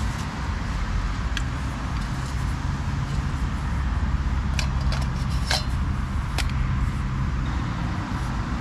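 Aluminium Trangia 27 camping stove parts clinking as the nested pots and windshield are taken apart, a handful of light metal clinks spread through. Under them runs a steady rumble of road traffic.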